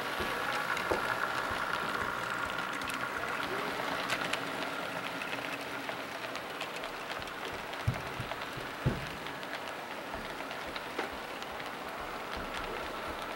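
HO scale model train rolling by: the model diesel's electric motor whines at a steady pitch for the first few seconds as the locomotive passes. Then the covered hopper cars clatter along the track with a run of light clicks, and two sharper clicks come about eight and nine seconds in.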